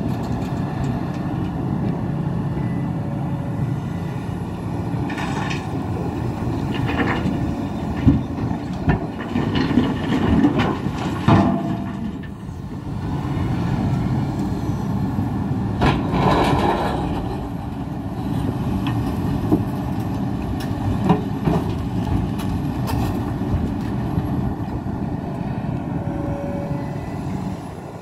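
Hidromek 390LC excavator's diesel engine running steadily under load, with bursts of crunching and clattering as the bucket digs and loads rock, several of them in the middle of the stretch.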